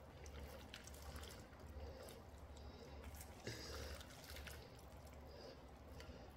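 Faint wet squelching and slapping of bare hands working chili seasoning paste into salted napa cabbage leaves in a stainless steel bowl, over a low steady hum.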